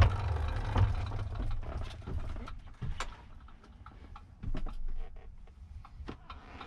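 A dirt bike is pushed up a loading ramp into a cargo van with its engine off. A low rumble of the tyres and footsteps on the ramp is heavy for the first couple of seconds, with scattered knocks and clicks throughout and a sharper click about three seconds in. A louder knock comes about four and a half seconds in.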